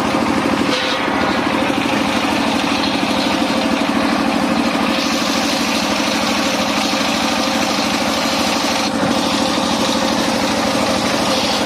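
Engine-driven circular sawmill running steadily. From about five to nine seconds in, a harsher hissing noise rides over the engine, as of the blade cutting through wood.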